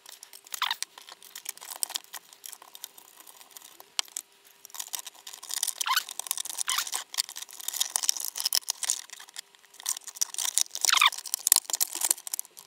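3D-printed plastic power-supply case being handled and its lid pressed down over the wiring, with plastic clicks, rubbing and several short squeaks that fall in pitch. The lid does not fit and will not shut.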